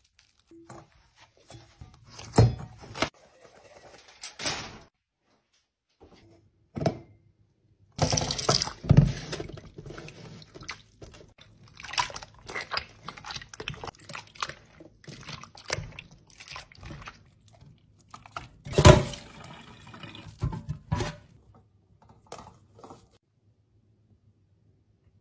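Flour-and-water dough being squeezed and kneaded by hand in a bowl of water: irregular wet squelches, drips and sloshes, with louder splashes about two, nine and nineteen seconds in. This is the washing of the dough that rinses out the starch and leaves the gluten behind.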